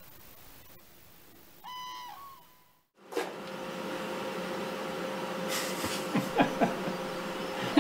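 A single distant bird call, one pitched hoot under a second long, over faint outdoor hiss. After a brief silence, a coal forge fire burns with a steady rushing noise and a low hum, with a few light metallic clinks of iron about two thirds of the way through.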